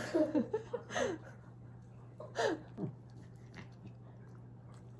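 A cat eating soft wet food from a gloved finger: faint wet smacking and chewing clicks. A few short voice sounds come in the first second and again about halfway.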